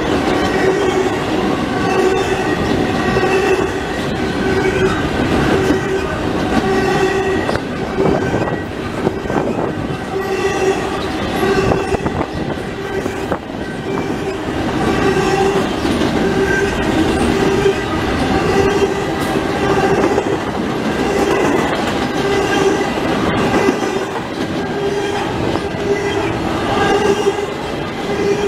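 Norfolk Southern double-stack intermodal container train passing close by at speed: a steady roar of railcars rolling over the rails, with a ringing tone that swells and fades about once a second.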